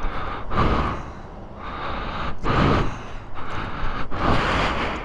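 A person breathing heavily close to the microphone: a run of noisy breaths in and out, rising and falling every second or so.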